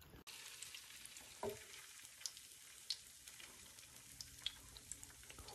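Battered jeon frying in oil on a griddle: a faint, steady sizzle with scattered small pops. A short, brief sound stands out about a second and a half in.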